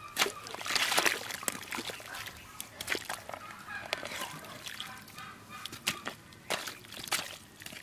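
Metal hoe blade chopping and scooping in a water-filled mud hole: irregular wet squelches, sloshes and scrapes, loudest about a second in.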